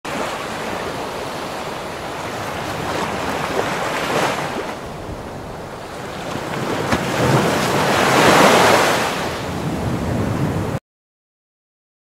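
Ocean waves washing in, swelling twice and cutting off suddenly near the end.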